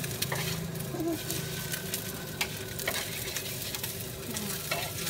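Food sizzling in oil in a wide steel wok, with a metal spatula scraping and tapping against the pan several times as the cook works it.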